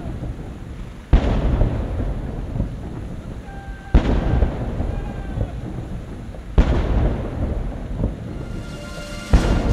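Four deep, sudden booms, each dying away in a low rumble, coming about every two and a half seconds, with faint held tones between them.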